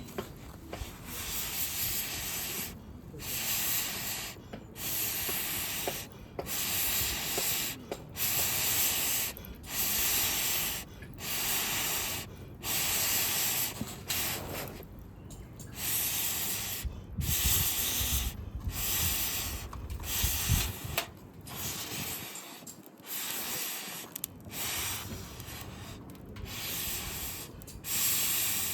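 Hand saw cutting through wood in steady back-and-forth strokes, one rasping stroke about every second and a half.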